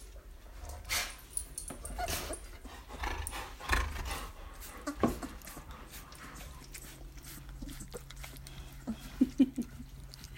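A litter of young puppies snuffling and shifting against each other in a sleeping pile, with a few short whimpers near the end.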